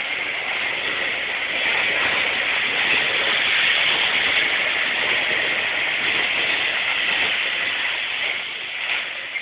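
A train running past, a steady rushing noise that swells about three to five seconds in and eases off near the end.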